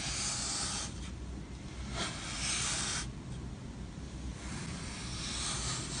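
Packed kinetic sand being cut and scraped apart by hand: three soft, hissing, gritty swishes, each about a second long, as the grains crumble away from the block.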